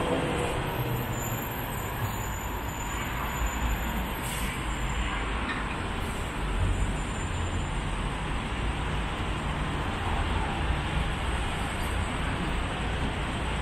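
Steady city street traffic noise, a low rumble of car engines and tyres.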